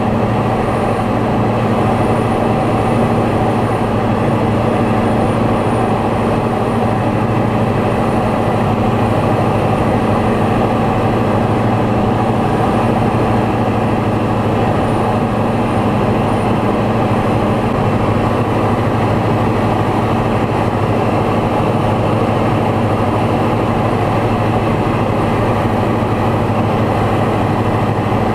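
Light aircraft's piston engine and propeller droning steadily in flight, heard from inside the cabin: a loud, even hum with steady low tones.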